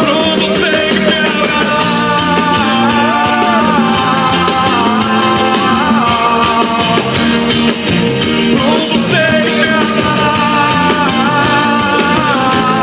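Pop-rock ballad music: a lead melody gliding and stepping in pitch over steady band accompaniment.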